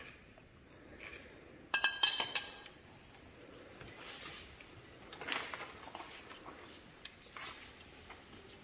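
A quick cluster of clinks from small metal objects knocking against a dish, about two seconds in, each with a short ringing. Faint rustling and handling sounds follow.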